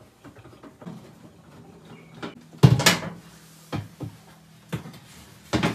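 Front cover of a wall-mounted gas water heater being worked loose and lifted off, giving several knocks and clatters of the casing. The loudest knock comes about two and a half seconds in.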